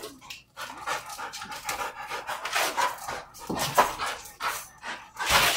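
Pit bulls panting hard in quick, uneven breaths while biting and tugging at a hanging tyre, worn out from the play.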